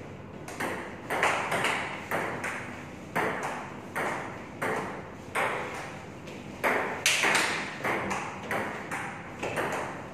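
Table tennis ball bouncing on the table and struck by paddles in a continuous rally, a run of sharp pings about two a second, each with a short echo from the hard-walled room.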